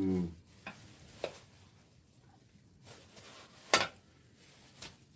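Quiet food-preparation handling: a few light clicks and taps of gloved hands and kitchenware as rice is taken from a mixing bowl for gimbap, with one sharper click about three and a half seconds in.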